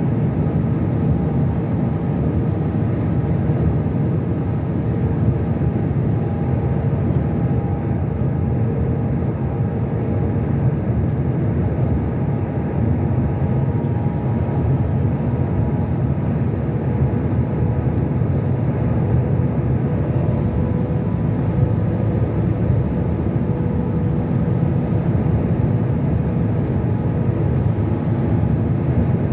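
Steady road and engine noise from a vehicle cruising at motorway speed, an even rumble with a faint steady hum and no change throughout.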